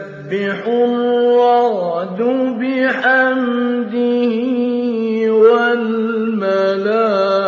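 A man reciting the Quran in a melodic chant, drawing out long sustained notes with ornamented pitch turns and slides between them.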